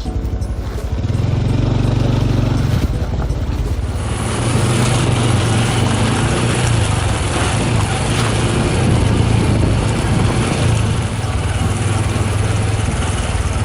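Honda CT125 Hunter Cub's single-cylinder engine running under way, with a steady low hum. A rush of wind and road noise joins it about four seconds in.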